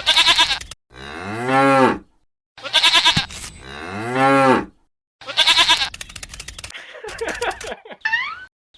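Four long mooing calls in a row, each about a second long, rising and then falling in pitch, with two quick rising whistle-like chirps near the end.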